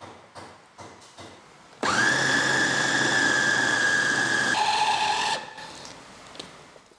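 A few light knocks, then an electric food chopper's motor switches on about two seconds in and runs with a steady high whine, blending ground beef and chicken with seasonings into meatball dough. Its tone shifts lower near the end and it stops after about three and a half seconds.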